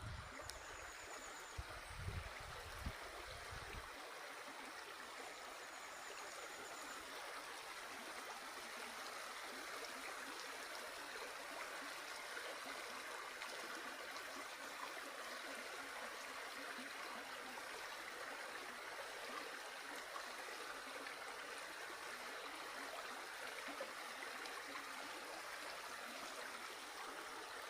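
Spring-fed mountain stream running, a steady rush of flowing water. A few soft low thuds sound in the first few seconds.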